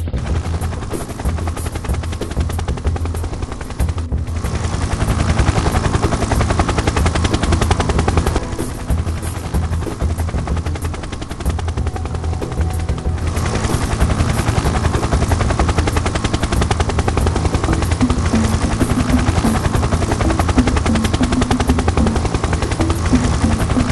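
Helicopter rotor blades chopping close by, a rapid even beat of blade passes with a deep low rumble, briefly dipping about four seconds in and again about thirteen seconds in.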